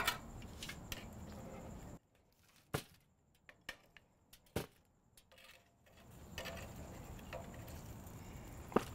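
Metal tongs clicking and tapping against the grill grates as cooked beef ribs are lifted off, a few sharp clicks scattered through and one louder click near the end.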